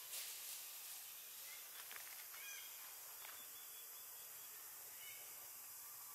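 Faint outdoor ambience: a steady high hiss with a few short, arching chirps, about two and a half seconds in and again near the end.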